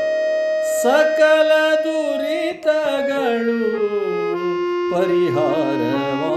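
A man singing a Kannada devotional song over a steady drone, in an ornamented melodic line with gliding notes that falls around the middle and wavers near the end.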